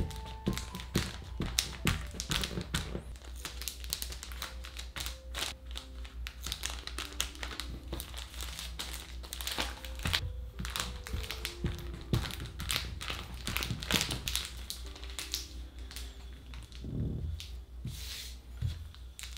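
Clear plastic film crinkling and crackling as pastry dough sealed in it is pressed by hand and rolled with a wooden rolling pin. Many irregular sharp crackles are mixed with light taps.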